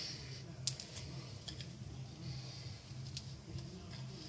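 Scattered light clicks and taps from hands and tools handling parts at the front of a car engine. The sharpest click comes about two-thirds of a second in, and a steady low hum runs underneath.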